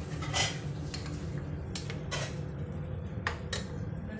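A metal utensil stirring food in a cooking pan, with a few sharp clinks of metal against the pan, over a steady low hum.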